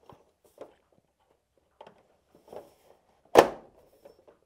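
A long overhead light fixture being pushed up and fitted against its ceiling mount: a few light knocks of handling, then one loud sharp clack about three and a half seconds in as it is latched into place.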